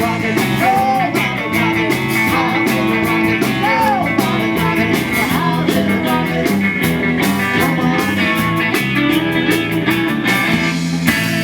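Live rock band playing: electric guitar and bass over a steady drum beat, with a singing voice.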